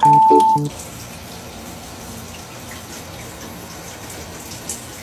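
Running water spraying steadily, as from a shower over a pet parrot. A short tune of music notes ends with a held note about half a second in.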